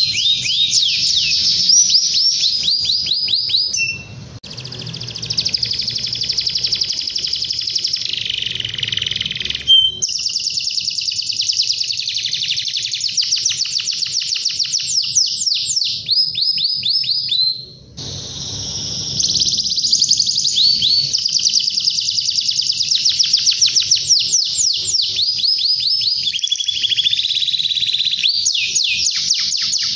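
Domestic canary singing in long, fast rolling trills of rapidly repeated notes and glides. The song breaks off briefly twice.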